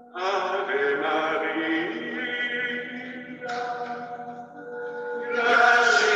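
Soundtrack music of sustained, chant-like voices holding long notes in layers. It starts abruptly, a new layer comes in about halfway through, and it swells louder near the end.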